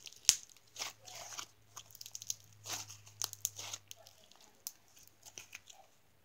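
Slime being squeezed and kneaded between the hands, making irregular sticky clicks and crackles, the sharpest one just after the start.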